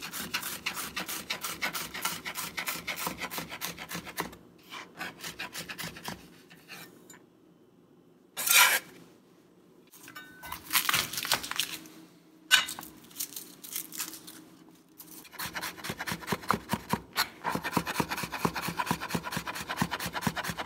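Rapid chopping with a cleaver on a plastic cutting board: fast repeated knife strikes dicing onion into small cubes. It pauses, with a brief loud noise about eight and a half seconds in and a few scattered knocks. The fast chopping resumes near the end as garlic is minced.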